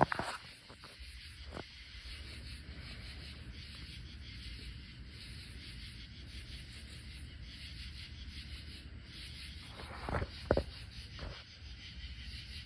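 Faint rubbing and scraping over a low steady rumble, with a few light clicks just after the start and a small cluster of sharper clicks or knocks about ten seconds in.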